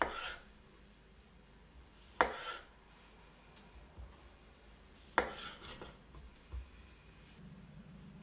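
Kitchen knife cutting tomatoes on a bamboo cutting board: three sharp knocks of the blade striking the board, two to three seconds apart, then a lighter tap. A faint rubbing starts near the end.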